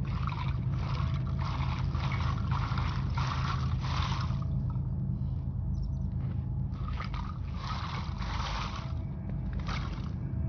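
A hand tool scraping across gritty ground in repeated strokes, about two a second, with a short pause about halfway through. A steady low rumble runs underneath.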